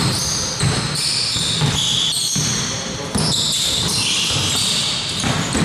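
Basketball game in progress: a ball bouncing on the court, with many short high-pitched squeaks and a steady background of hall noise.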